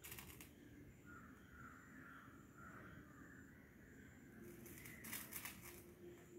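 Near silence: faint background, with brief soft scratchy crackles at the start and again about five seconds in.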